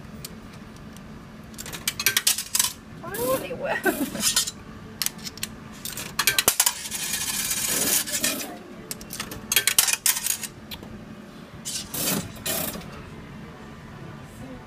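Coins clinking and rattling as they are dropped into a slot machine and scooped from its metal coin tray, in a run of sharp clicks with a longer spell of rattling about two-thirds of the way through.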